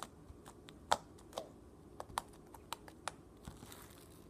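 Sticky homemade slime being worked between the hands, giving irregular small clicks and pops as it pulls off the skin, the loudest about a second in.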